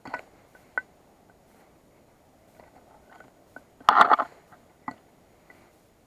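Hatchet blade striking a piece of wood to split kindling: a few sharp knocks, with a loud rapid cluster about four seconds in.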